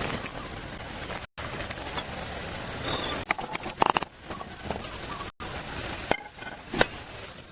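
Outdoor ambience under a steady high-pitched insect drone, with a few sharp clicks a few seconds in and again near the end. The sound cuts out briefly twice.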